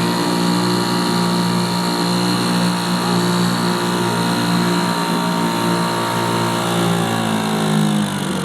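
1973 British Seagull Forty Plus Mark II outboard, a single-cylinder two-stroke, running steadily while driving a loaded boat. Its pitch sags slightly near the end.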